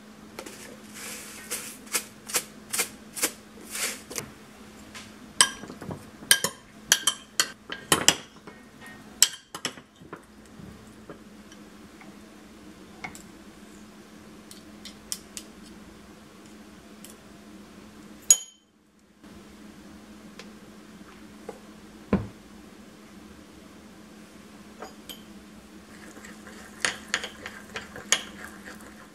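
Metal spoons clinking and scraping against small bowls as seasonings are measured and stirred together. There are quick runs of clinks in the first ten seconds and again near the end, with sparser taps in between, over a steady low hum.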